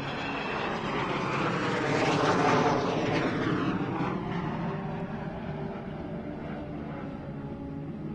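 Jet noise of Avro Vulcan XH558's four Rolls-Royce Olympus turbojets as the bomber flies past, swelling to its loudest about two and a half seconds in and then fading slowly as it banks away.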